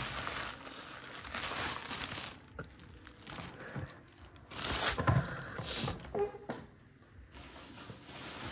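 Rustling and crinkling as leather shoes are handled and swapped on a display turntable, in several bouts, with a few light knocks as a shoe is set down.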